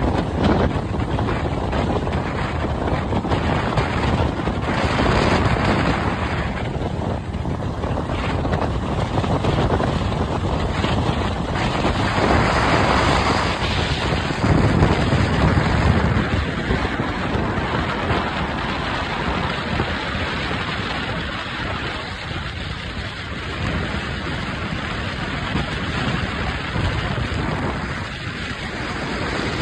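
Road and wind noise of a car moving at highway speed: a steady, loud rushing that swells and eases, with no clear engine tone.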